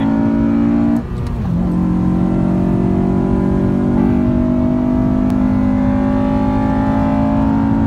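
2006 Honda Civic Si's 2.0-litre four-cylinder engine accelerating, heard from inside the cabin. The revs fall at a gear change about a second in, then climb steadily.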